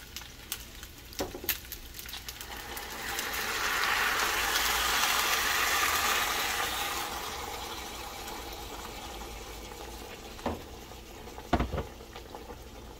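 Blended guajillo, morita and chile de árbol sauce being poured into a hot pan of seared beef chops: scattered pops, then a loud sizzling hiss swelling about three seconds in as the sauce hits the hot pan and bubbles, fading gradually. A couple of knocks near the end.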